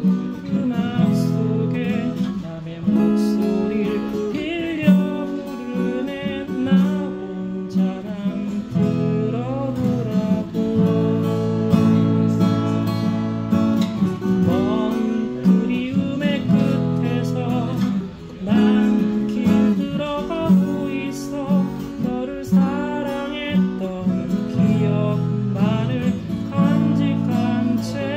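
Steel-string acoustic guitar strummed in chords, with a voice singing along.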